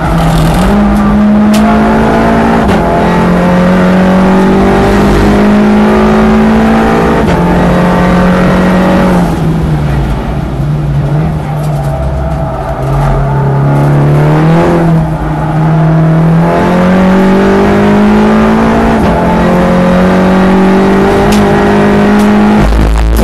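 Volkswagen Golf Mk7 GTI race car's turbocharged 2.0-litre four-cylinder at full throttle, heard from inside the cabin. Its note climbs and drops back with each upshift, falls through downshifts under braking for a slow corner around the middle, then climbs again through the gears.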